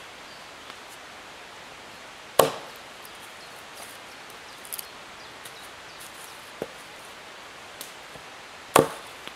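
Wood cracking sharply twice, about six seconds apart, with a few faint small clicks between over a steady hiss.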